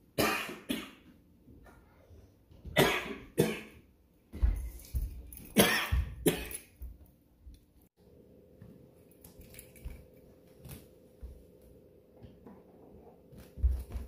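A man coughing hard several times, mostly in quick pairs. After about eight seconds a robot vacuum runs with a faint steady hum and light clicks, and there is a low thump near the end as it is lifted off the floor.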